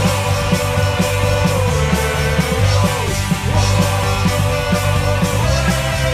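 Upbeat punk-rock theme music with a steady, driving drum beat under sustained, sliding melody lines.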